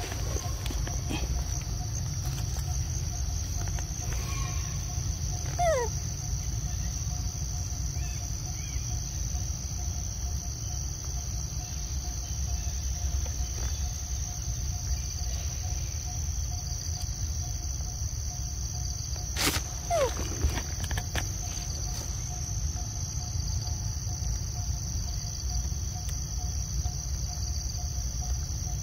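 Steady insect chorus: a constant high-pitched trill with a fainter lower tone, over a low rumble. A short falling whistle-like call comes about six seconds in and again about twenty seconds in, the second just after a sharp click.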